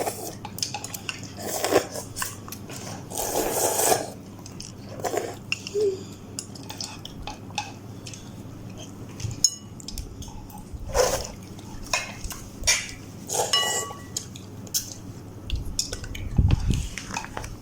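Utensils clinking and scraping against a bowl of Maggi chicken instant noodles while eating, with a dull thump near the end.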